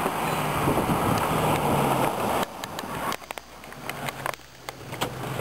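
Passenger car driving past close by, engine and tyre noise loudest for the first two and a half seconds, then cutting off abruptly to a quieter stretch with scattered clicks.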